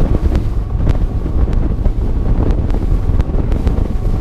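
Wind buffeting the microphone of a Skeeter bass boat running at speed over choppy water, with the rush of water and engine underneath and a few sharp knocks along the way.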